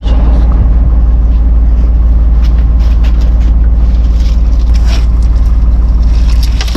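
Fishing boat's engine running steadily, a loud deep rumble, with a few light knocks on deck.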